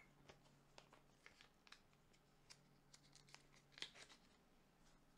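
Near silence with faint, scattered ticks and light rustles from handling trading cards and plastic card sleeves.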